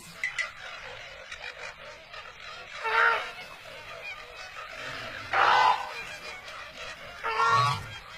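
An animal calling three times, each call short and loud and about two seconds apart, over a steady background hiss.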